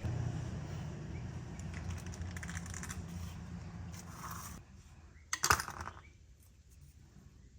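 Metal tools and engine parts being handled: a low rumble with light rattling and scraping for about four and a half seconds, then a sharp metallic clank a little past five seconds in.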